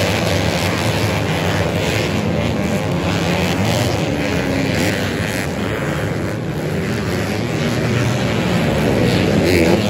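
A field of racing dirt bikes, many engines revving and overlapping as the riders accelerate around the track. The sound is loud throughout and swells a little near the end.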